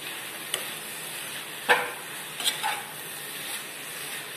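Diced potato and capsicum sizzling steadily in a non-stick frying pan while a metal perforated spatula stirs them. The spatula scrapes and knocks against the pan a few times, loudest about a second and a half in.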